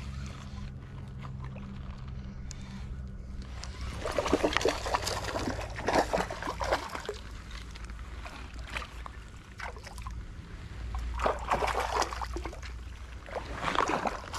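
A hooked rainbow trout thrashing and splashing at the surface close to the bank, in irregular bursts from about four seconds in.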